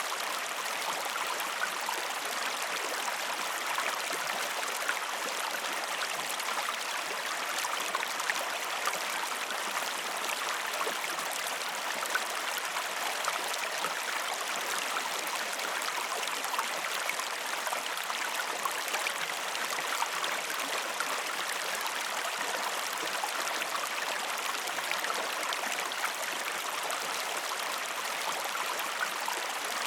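Stream water flowing steadily: an even rush with fine splashing throughout.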